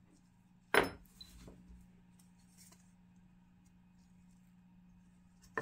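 Small parts of a cast-iron hand coffee grinder being handled and fitted: one sharp clink about a second in, a few lighter taps after it, and another clink at the very end, over a steady low hum.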